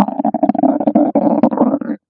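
Hungry stomach growling loudly: one long rumble with a fast crackle running through it, starting suddenly.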